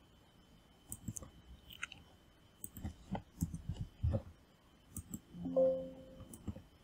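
Computer mouse clicks and small desk handling noises, scattered irregularly. About five and a half seconds in comes a short pitched tone, the loudest sound, as a Windows information dialog box opens.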